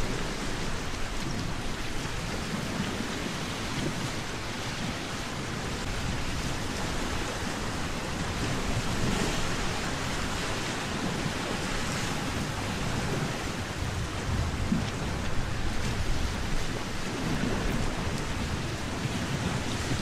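Wind blowing: a steady rushing noise with irregular low rumbles and buffeting.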